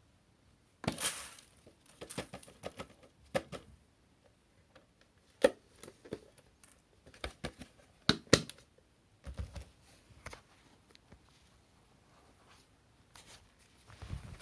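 Plastic vacuum cleaner parts being handled: irregular sharp clicks and knocks with some rustling. The sharpest clicks come about five and a half seconds in and a pair around eight seconds, with a few duller thumps just after.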